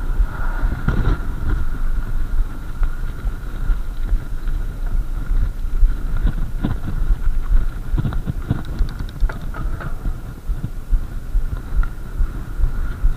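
Mountain bike riding over loose gravel: tyres crunching and the bike rattling and knocking over the stones, with wind buffeting the camera microphone as a heavy low rumble. A thin steady high whine sits under it.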